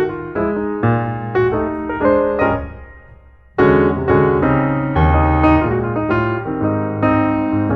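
Background piano music, single notes and chords ringing and decaying; it dies away about three seconds in, then comes back with a loud chord.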